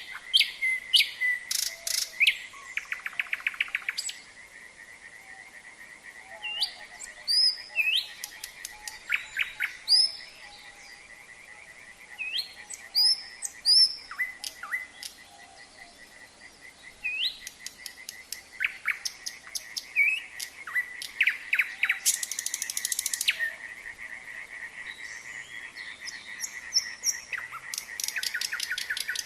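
A nightingale singing, phrase after phrase of clear whistles, sweeping notes and fast rattling trills, over a steady pulsing chorus of frogs.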